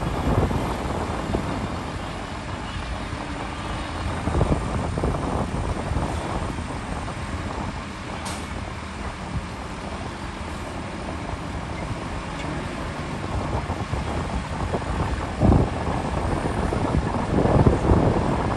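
Heavy diesel earthmoving machinery running steadily at a construction site, its engine noise swelling louder a few times.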